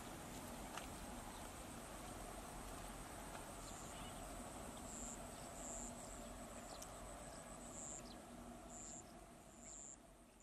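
Faint rural field ambience: a steady high insect hum, with short high chirps every second or so from a few seconds in, and a few small ticks. It fades out at the end.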